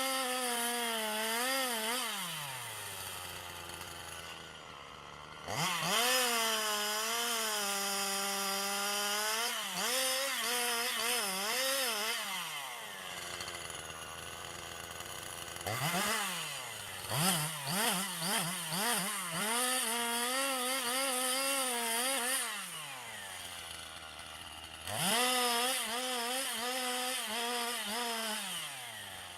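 Gasoline chainsaw engine running at full throttle in cuts, its pitch wavering under load. It drops back to idle between cuts four times, with a run of quick throttle blips partway through.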